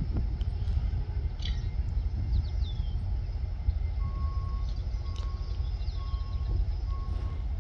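Steady low rumble with birds chirping a few short falling notes. About halfway through, an electronic beeper starts, sounding a short steady beep about once a second.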